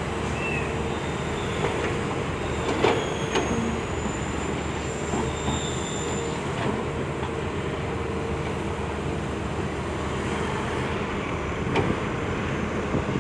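Volvo hydraulic excavator running steadily under load, with a few sharp metal clanks and thin high squeals from the working machinery.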